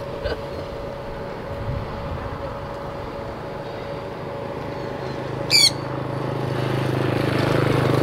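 A sun conure gives one short, high-pitched call about five and a half seconds in, over a steady background hum. From about five seconds a low droning hum swells louder toward the end.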